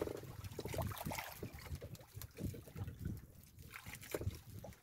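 Wind buffeting the microphone, with water lapping against a small outrigger fishing boat.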